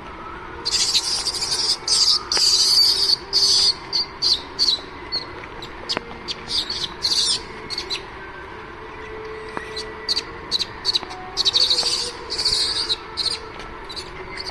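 Birds calling in loud, high-pitched chirping bursts of varying length, many in quick succession and then more spaced out, over a steady background hiss.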